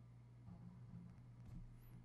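Near silence: a faint steady low hum, with a faint click about a second and a half in.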